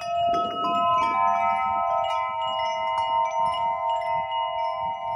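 Tubular metal wind chime ringing, its tubes struck again and again so that several clear notes overlap, each ringing on for a long time.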